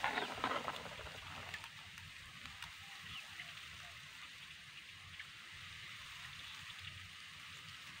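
Outdoor ambience by a nest in tall grass: a few rustles and clicks in the first second, then a faint steady hiss with occasional faint short chirps.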